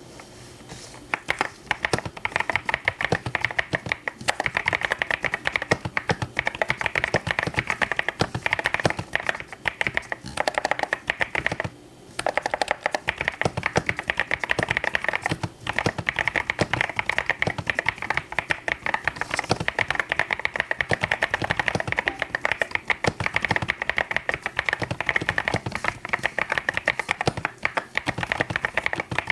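Continuous fast typing on a mechanical keyboard: a dense run of key clacks starting about a second in, with one brief pause partway through.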